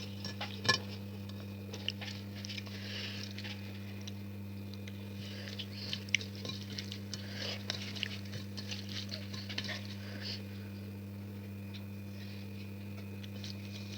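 Close-up eating sounds: soft chewing and crunching with small clicks of food and hand or utensil against a plate, one sharper click just under a second in, over a steady low hum.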